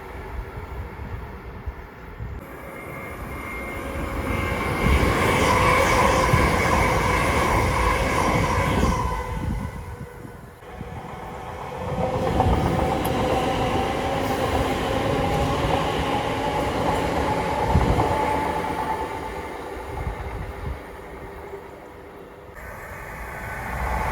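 Electric trains running through a station: two loud spells of rumbling wheel and track noise with a steady motor whine, the first building from about four seconds in, the second starting about twelve seconds in and fading near the end.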